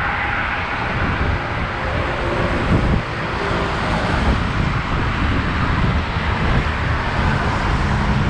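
Wind rushing over a GoPro action camera's microphone on a moving road bike, with road traffic noise underneath.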